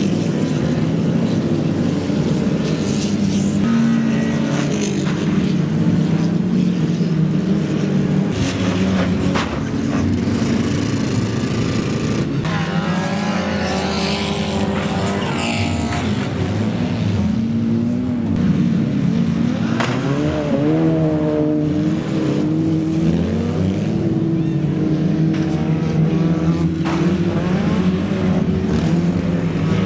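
Several banger-racing cars' engines running and revving, their pitches rising and falling as they accelerate and lift off, with a few sharp bangs of cars hitting each other.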